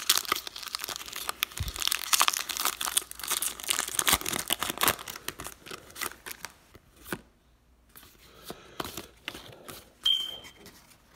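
Foil Pokémon card booster pack wrapper crinkling and tearing as it is opened, dense for the first five seconds, then sparser rustling as the cards are handled. A short high beep sounds about ten seconds in.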